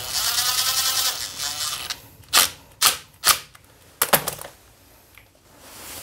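Cordless impact driver running for about two seconds with a fast clatter, tightening a new starter motor's mounting bolt on a small motorcycle engine. It is followed by several separate sharp knocks.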